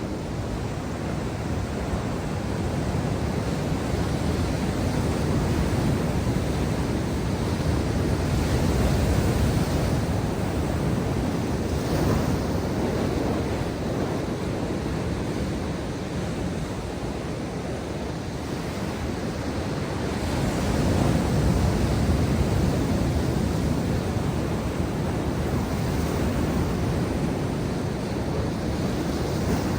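Ocean surf breaking and washing on the shore, a continuous rushing that swells louder twice, about a third of the way in and again past the two-thirds mark.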